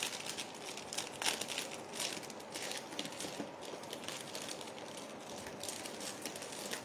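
Faint crinkling and rustling with scattered soft clicks.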